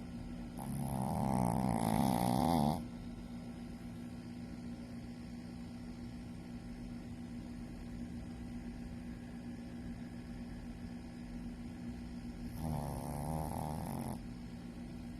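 A sleeping Shih Tzu snoring: two snores of about two seconds each, some ten seconds apart, the first louder than the second.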